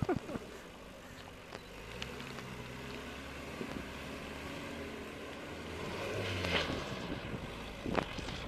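Off-road buggy's engine running as it drives across a dirt slope, heard at a distance. The engine note comes in about two seconds in and builds to its loudest past the middle. Wind noise on the microphone.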